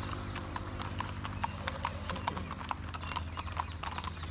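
Hooves of several horses walking on a paved road: an irregular clip-clop of many overlapping sharp hoofbeats, over a low steady hum.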